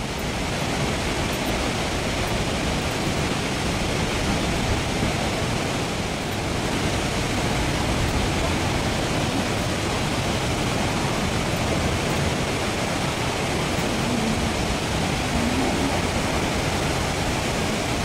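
The Reichenbach Falls, a tall waterfall plunging down a rock face, giving a steady, dense rush of falling water.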